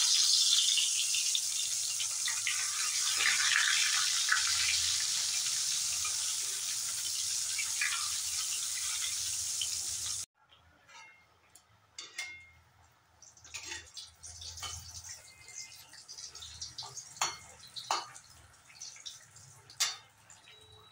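Eggplant slices sizzling steadily as they deep-fry in hot oil in a metal kadai. The sizzle cuts off suddenly about ten seconds in, leaving a faint crackle with scattered clicks and scrapes of a metal spatula against the pan.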